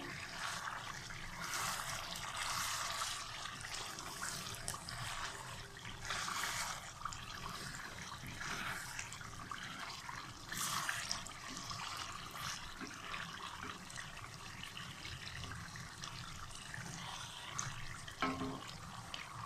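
Chicken masala sizzling and crackling in oil in a pot over high heat, fried until the oil has separated and risen to the surface, the sign that the masala is done. The hiss swells and eases every few seconds.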